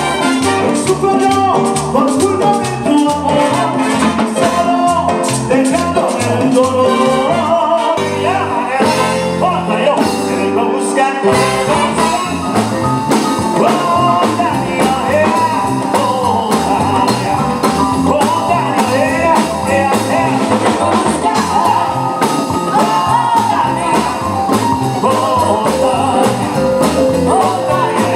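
Live Latin dance band playing a medley: horns, piano, bass and hand percussion such as congas under a lead vocal. Around a third of the way in the percussion drops out for a few seconds over a held chord, then the beat comes back.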